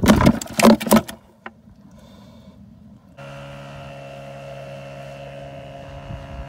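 A few loud knocks and rattles in the first second, then after a short lull a steady droning hum from a motorboat's engine running across the water, starting about three seconds in and holding at an even pitch.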